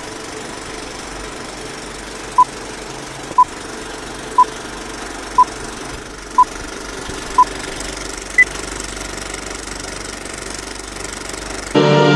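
Film-projector rattle under a film-leader countdown: six short beeps a second apart, then one higher-pitched beep a second later. Loud orchestral music with brass cuts in near the end.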